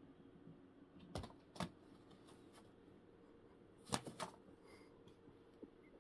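Kitten's paws tapping and scuffing on corrugated cardboard packaging: a few short, light clicks, a pair about a second in and a louder pair about four seconds in, over a near-quiet room.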